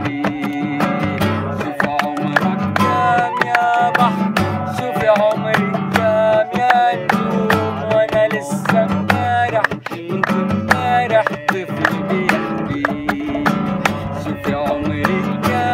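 Background music: the instrumental passage of an Arabic folk song, with plucked strings playing a melody over a steady beat.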